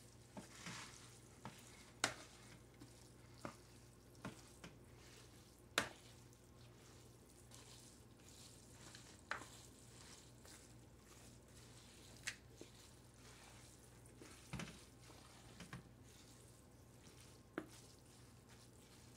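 Soft, wet stirring of japchae glass noodles, beef and vegetables in a plastic bowl, with scattered light clicks of tongs and a wooden spatula against the bowl over a steady low hum.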